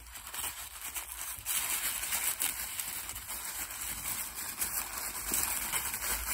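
Rustling and crinkling of packaging as a compartment of a sensory advent calendar is opened and the toy unwrapped, heard as an irregular crackly hiss.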